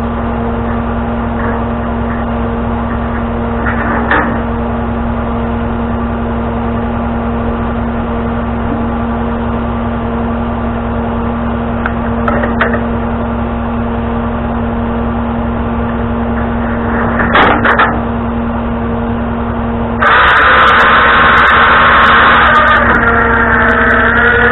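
Tow truck running with a steady hum and a few short knocks now and then. About twenty seconds in, a louder whine joins and wavers near the end.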